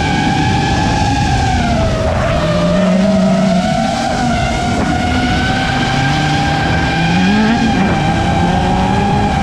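A racing FPV quadcopter's motors whine steadily. The pitch dips about two seconds in and climbs back with the throttle. Race car engines rev beneath it, one note climbing about seven seconds in.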